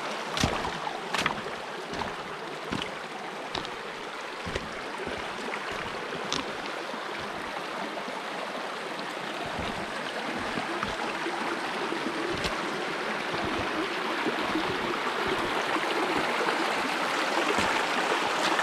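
Small mountain stream flowing and babbling over rocks in a steady rush of water. A few short sharp clicks come in the first few seconds, and the water grows a little louder toward the end.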